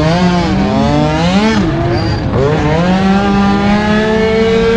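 Small two-stroke scooter engine revving as it accelerates: the pitch climbs, drops back briefly about a second and a half in, then climbs again and holds a steady high pitch.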